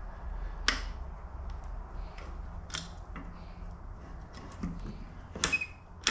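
Sharp metallic clicks, three or four about two seconds apart: a detachable motorcycle sissy bar's spring-loaded latch pins snapping into its docking points, the sign that the bar is locked in place.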